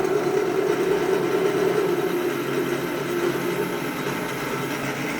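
Freshly overhauled mini lathe running under power, giving a steady hum with a hiss over it; the sound starts abruptly at the beginning.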